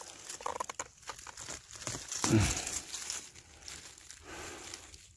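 Dry fallen leaves and twigs rustling and crackling as a hand clears the forest litter around a mushroom to pick it. About two seconds in there is one short falling voice sound.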